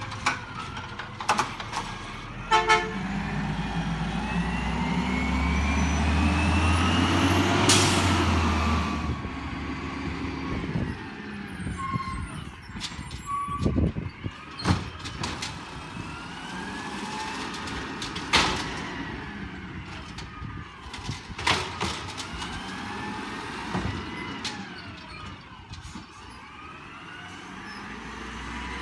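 Garbage trucks driving past on a street. A diesel engine swells to its loudest about eight seconds in, then fades, with scattered sharp clicks and knocks throughout.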